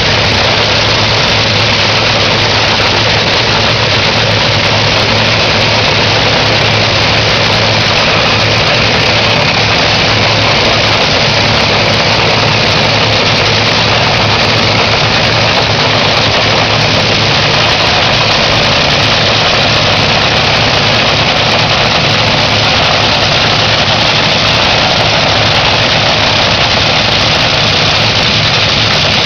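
Supercharged 500-cubic-inch nitromethane-burning Top Fuel Hemi engine idling at the starting line, loud and steady, with no revving.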